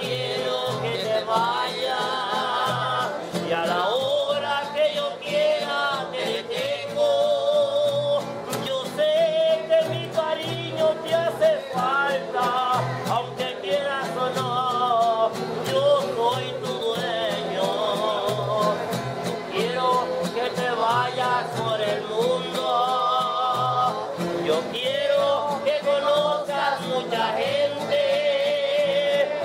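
A man singing a ranchera song with a wide vibrato, accompanied by strummed acoustic guitar and a guitarrón plucking a steady bass line.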